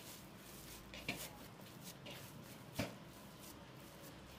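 Soft cornmeal dough being kneaded by hand in a bamboo wooden bowl: light handling and squishing, with two soft thumps of the dough against the bowl, about a second in and nearly three seconds in, the second one louder.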